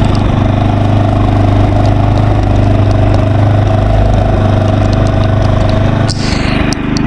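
Walk-behind tiller's small engine running steadily, with a brief dip in level about six seconds in.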